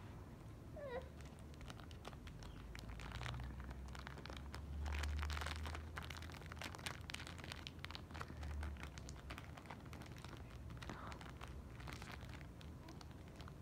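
Plastic blind-bag wrapper crinkling and crackling irregularly as it is handled and torn open, with a low handling rumble in the middle.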